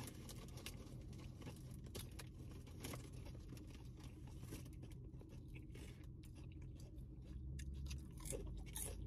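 Close-up chewing of a mouthful of sub sandwich: soft wet clicks and small crunches throughout, over a low steady hum.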